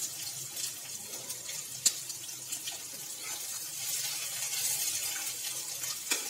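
Hot mustard oil with cumin seeds sizzling in a kadhai as ginger-garlic paste is added and stirred with a metal spatula: a steady hiss with scattered crackles and one sharp click about two seconds in.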